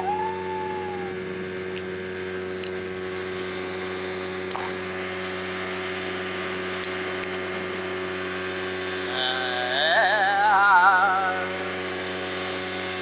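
Speedboat engine running at a steady pitch. About nine seconds in, a louder warbling tone rises and wobbles over it for about two seconds.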